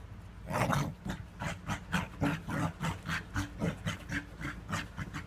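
A small dog panting and grunting in a quick, even rhythm, about three to four breaths a second.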